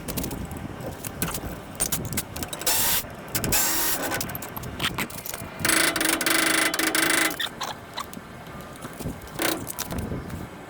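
Hand-tool work on a truck's front brake assembly: metal clinks and clatter, with a few short louder bursts and one sustained noisy stretch of about a second and a half starting about six seconds in.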